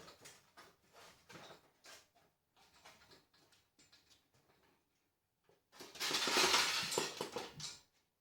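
Light metallic clinks and knocks of a gas cylinder being handled on a steel welding cart, then a loud rushing, rasping noise about six seconds in that lasts nearly two seconds.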